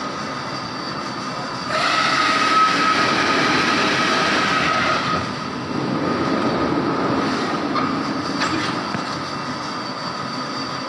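Foam-cutting machine running: a steady machine hum with a high whine, growing louder and harsher from about two seconds in for a few seconds, then easing.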